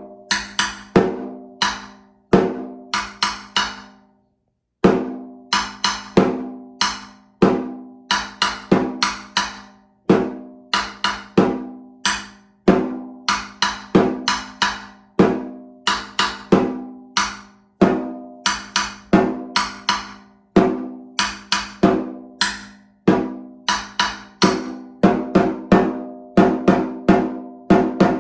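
Solo snare drum played with sticks: phrases of quick strokes and accents in rhythmic groups, each stroke leaving a ringing drum tone, with a short break about four seconds in.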